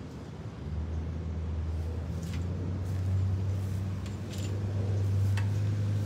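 A steady low engine hum, a motor vehicle running close by, setting in under a second in and holding at an even pitch, with a few faint clicks over it.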